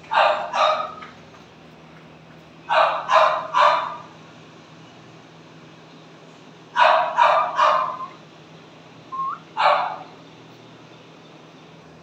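French bulldog puppy barking in short high yaps, grouped in twos and threes a few seconds apart, with one lone bark near the end.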